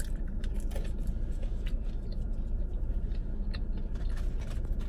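Steady hum and blowing of a car's air conditioning running in a parked car. Faint scattered clicks and crunches come from eating fries and handling the food container.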